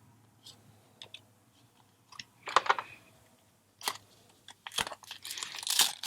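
Magic: The Gathering trading cards being handled, with scattered soft clicks and rustles, then a denser crinkling near the end as a foil booster pack wrapper is handled.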